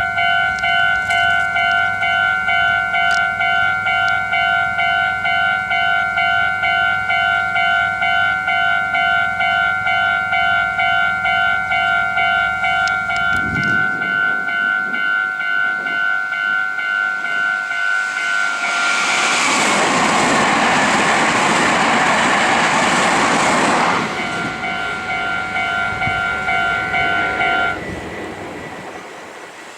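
Japanese level-crossing alarm ringing its repeated electronic dings, about two a second. About eighteen seconds in, a Meitetsu train passes with a loud rush of wheel and running noise lasting about six seconds, and the alarm cuts off about four seconds after the train has gone.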